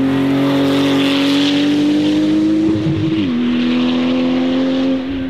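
Porsche 911 GT2 RS Clubsport 25's 3.8-litre twin-turbo flat-six driving past. The engine note holds a steady pitch, drops a step about three seconds in, and fades near the end as the car pulls away.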